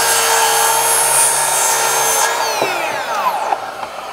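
Makita 36V (18V X2) 9-1/4-inch brushless circular saw running and cross-cutting a 2x board. About two seconds in the trigger is released, and the motor winds down quickly with a falling whine as the electric brake stops the blade. A dust extractor's steady running noise continues underneath.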